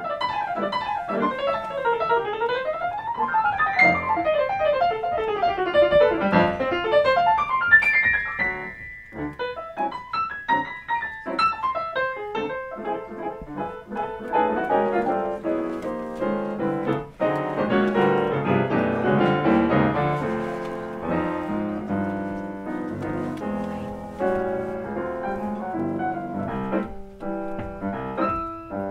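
Two grand pianos, one a Yamaha, playing jazz in duet: fast runs sweeping up and down the keyboard for about the first eight seconds, a brief break, then dense, full chords.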